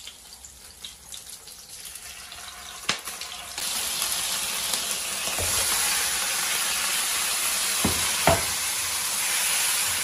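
Chunks of shark meat tipped into hot oil in a wok, setting off a loud, steady sizzle about three and a half seconds in that keeps going. Two short knocks sound near the end.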